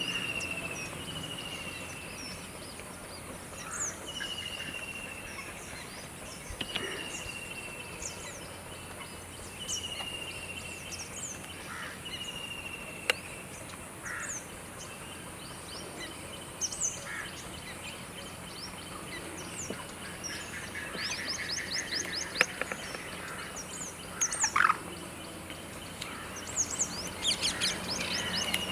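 Several birds calling: a clear whistle that slides down in pitch, repeated several times in the first half, over many short high chirps, with bursts of rapid high trills about two-thirds of the way through and near the end.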